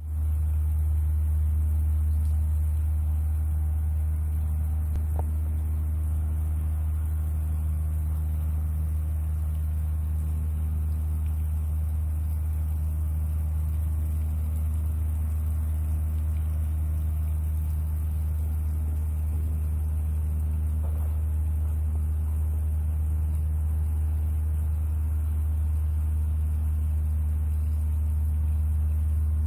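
A steady low mechanical hum, strong and unchanging, with fainter higher hums stacked above it.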